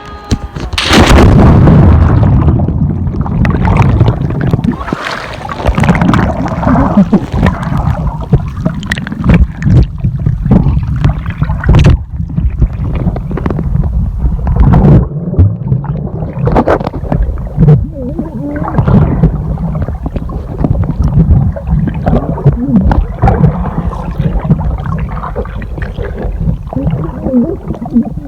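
Sea water splashing and gurgling close to the microphone in irregular surges as a swimmer strokes through it.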